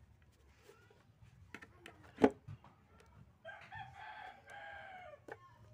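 A sharp knock about two seconds in, then a rooster crows once, a call of nearly two seconds that falls slightly at its end.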